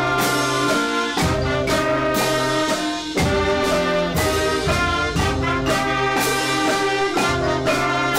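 School concert band playing: brass, flutes, clarinets and saxophones sounding sustained chords together over regular drum strokes.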